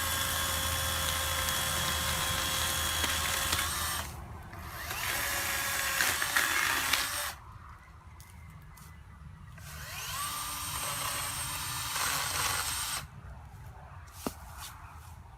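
Greenworks 40-volt cordless electric chainsaw running in three bursts as it cuts wood: a steady motor whine for about four seconds, a second, louder and rougher run around the middle, and a third that spins up and cuts off suddenly. A single sharp click follows near the end.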